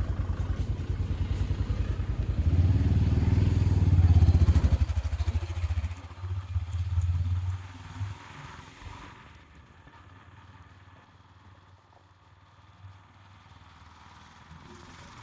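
A vehicle engine running with a fast low pulse, growing louder for the first few seconds, then fading away after about eight seconds.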